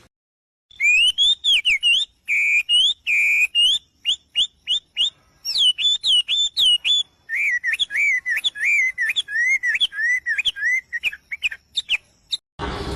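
A songbird singing loud, clear whistled phrases: rising sweeps, quick runs of short notes and wavering warbles, starting after a second of silence. It cuts off abruptly near the end, and a burst of different, noisy sound follows.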